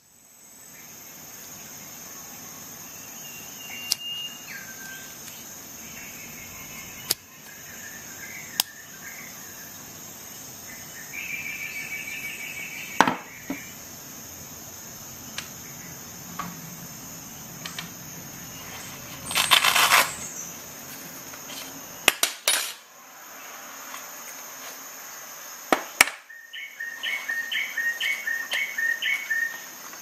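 Steady high insect chirring, like crickets, with scattered sharp clicks and clinks; near the end a run of about seven short chirps.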